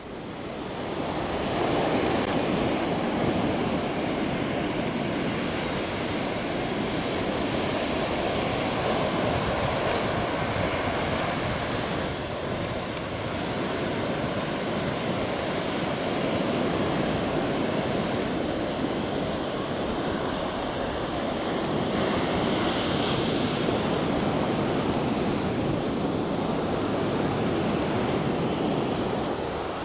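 Caribbean Sea surf breaking on a beach: a steady rush of waves that swells and eases, with wind buffeting the microphone.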